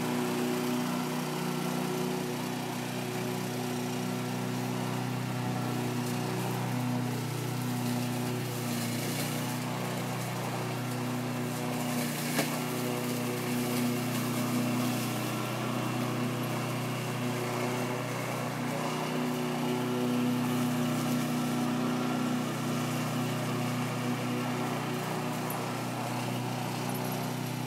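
Lawn mower engine running steadily at a constant pitch, with one brief click about halfway through.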